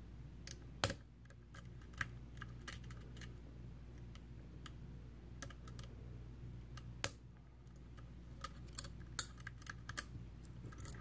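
Lock picks working the pins of a Medeco M3 high-security lock: small, irregular metal clicks and ticks, a sharper click about a second in and another about seven seconds in.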